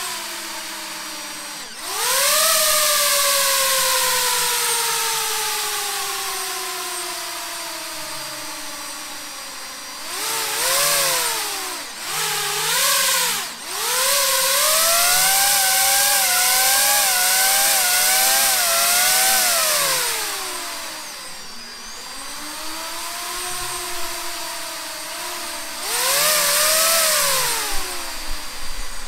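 DJI FPV drone's motors and propellers whining over a rushing hiss. The pitch jumps up about two seconds in and slowly winds down, climbs and dips in quick surges from about ten seconds, falls away near twenty seconds, and surges once more near the end, as the throttle is worked up and down.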